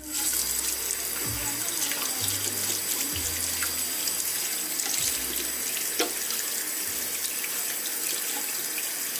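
Bathroom sink faucet running steadily, water splashing into the basin as hands are rinsed under the stream.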